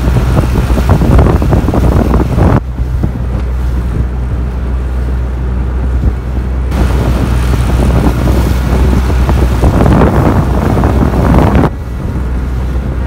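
Wind buffeting the microphone over the steady drone of a 25 hp Yamaha four-stroke outboard running at speed, with water rushing past the hull. The buffeting comes in heavy gusts, strongest at the start and again from about seven to eleven seconds in.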